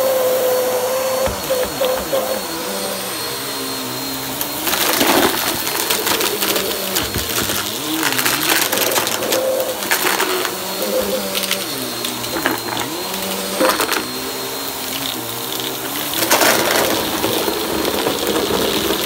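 Bagless upright vacuum cleaner running over carpet, its motor pitch dipping and rising as it is pushed back and forth. It gives several bursts of rustling and rattling as shredded tissue paper is sucked up into the clear bin.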